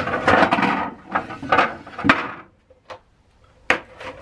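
A black plastic seat cowl being handled and fitted onto a tubular metal seat hoop: a couple of seconds of scraping, rubbing and knocking, then a few single sharp clicks.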